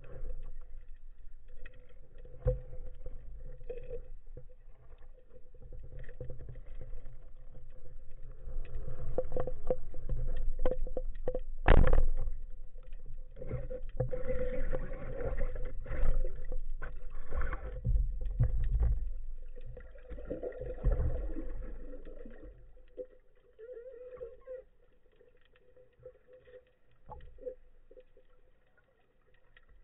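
Muffled underwater sound picked up through a camera housing on a speargun: water noise and knocks from the diver's movement over a faint steady hum. A single sharp knock about twelve seconds in, the loudest sound, fits the speargun being fired. The sound grows quieter near the end.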